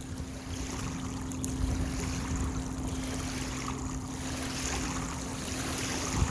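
Small waves washing and lapping against a lake bank in uneven swells, with a steady low hum underneath.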